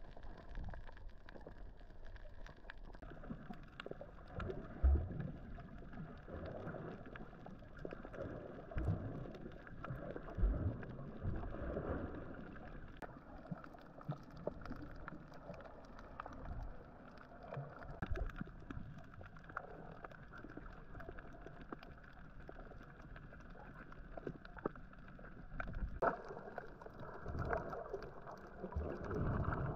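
Boat under way: a steady rush of engine and water noise, with a few irregular low thumps.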